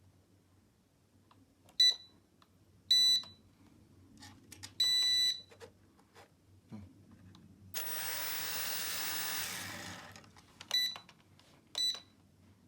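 A series of pitched electronic beeps from a mini toy drone and its remote as the drone is powered on, the first three each longer than the last. About eight seconds in, the drone's small motors spin up with a rushing whir for about two seconds, a spin test after a replacement battery was soldered in. Two more short beeps follow.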